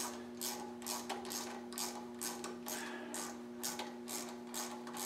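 Short rasping clicks repeating about twice a second as a part is worked loose and unscrewed by hand from a mini bike's handlebar.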